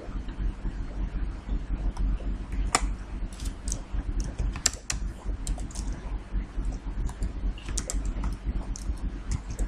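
Computer keyboard keystrokes, clicking irregularly in short runs, over a low steady hum.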